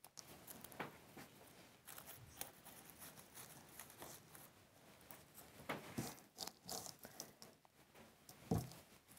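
Faint rustling and small clicks of lavender stems being handled and trimmed with florist's scissors, with a few sharper snips, the loudest near the end.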